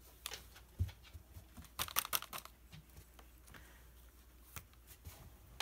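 Craft handling noise: a few short clicks and scratchy rustles as a paintbrush and a plastic paint bottle are worked against a plastic lid used as a paint palette, with a small cluster of them about two seconds in.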